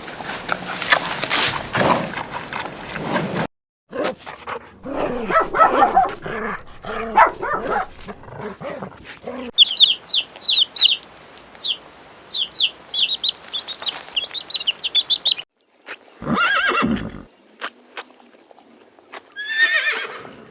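Animal calls cut one after another: a horse whinnying, then a small bird's rapid high chirps, then two short louder calls.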